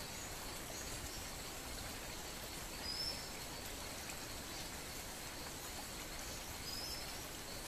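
Quiet outdoor ambience: a steady low hiss, with two faint, short high chirps, one about three seconds in and one near the end.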